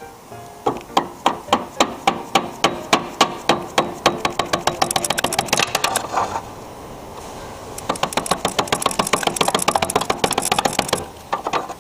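Rapid, evenly spaced hammer strikes, about four a second at first and then faster, with a pause of about a second and a half in the middle.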